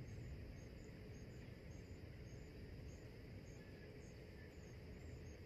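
Faint outdoor ambience: an insect chirping in an even rhythm, about two short high chirps a second, over a low steady rumble.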